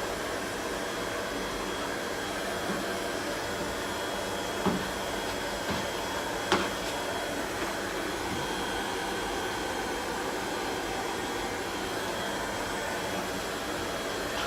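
Steady whirring of a running machine with a faint high whine, with a few light knocks about five and six and a half seconds in.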